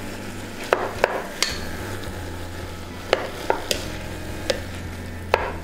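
Wooden spatula stirring vegetables and tofu in a stainless steel pot, knocking sharply against the pot about eight times, over a steady low hum and faint frying.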